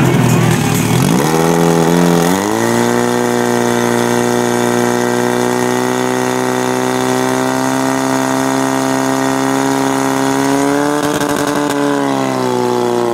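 Portable fire pump's engine revving up in two quick steps, then running steadily at full throttle as it drives water through the hoses to the nozzles, its pitch rising a little near the end.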